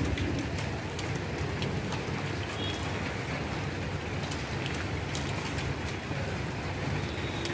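Light rain drizzling steadily, with scattered drops ticking.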